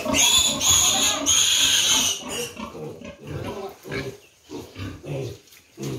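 Pigs squealing: three loud, high-pitched squeals in the first two seconds, followed by a run of short low grunts about every half second.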